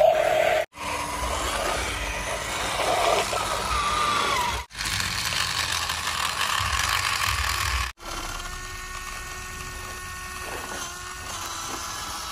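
Small electric motors and plastic gearboxes of remote-control toy construction vehicles whirring, in short clips separated by abrupt cuts. The last clip holds a quieter, steadier whine.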